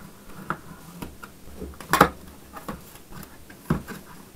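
Cardboard box being cut open with a utility knife and its flaps handled: a string of short taps, scrapes and clicks, the loudest about two seconds in.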